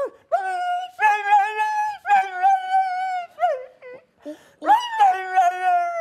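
A man imitating a dog fighting a cat with only his mouth: a string of long, drawn-out wavering cries, each held near one pitch, broken by a few short yelps about halfway through.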